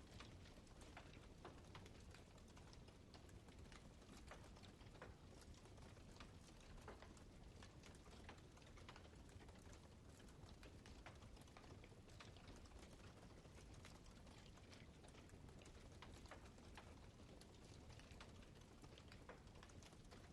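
Wood campfire crackling faintly: many small, irregular snaps and clicks over a soft steady hiss.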